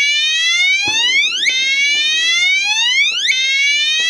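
Gentex GECR24PWW Commander 3 horn strobe sounding its slow whoop tone at high volume: a rising electronic sweep repeating about every 1.8 seconds, each sweep cutting off abruptly and starting again low.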